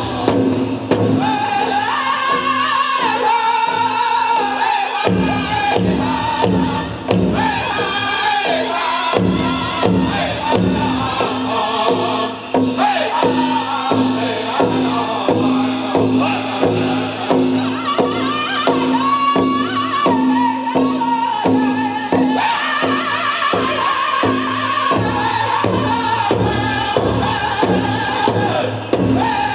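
Powwow drum group singing a men's chicken dance song in high voices over a steady, even beat on the big drum.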